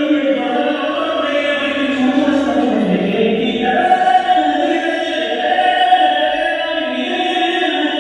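Tamil film song playing over a loudspeaker, with a choir of voices singing throughout, as a test of the HDMI audio extractor's analogue output.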